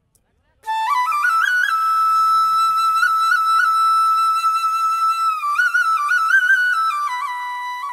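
Solo flute melody: it comes in a little under a second in, holds one long note for several seconds, then moves through short ornamented steps up and down and settles on a lower note near the end.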